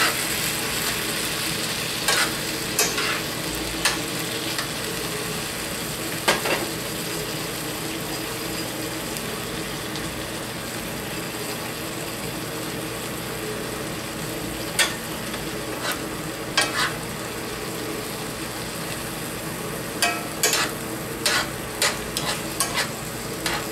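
Sausage, apple and bread-cube stuffing sizzling steadily as the last of its broth cooks off in a cast iron skillet. A stirring utensil clicks and scrapes against the pan now and then, in a quick run near the end.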